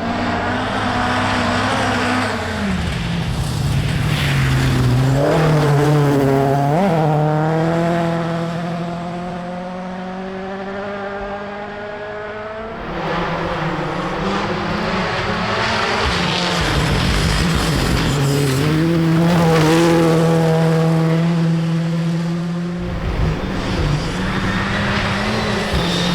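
Rally cars at full throttle on a forest stage, engines revving hard and climbing through the gears as they go by, with several rising runs of engine pitch.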